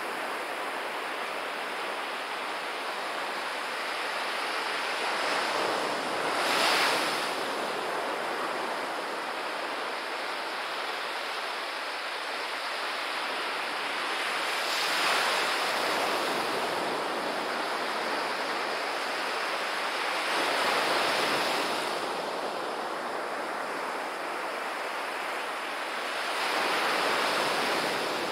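Sea surf on a sandy beach: small waves breaking and washing up over the sand in a steady rush. It swells louder four times, about every six seconds, as each larger wave comes in.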